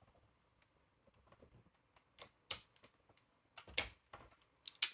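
Hand wire strippers clicking and snapping several times as they strip the insulation off a wire. The sharp clicks come in small clusters during the second half.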